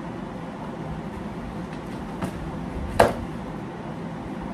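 Firecracker packets being handled: a faint tap a little after two seconds, then one sharp knock about three seconds in, as of a cardboard box set down hard, over a steady background hum.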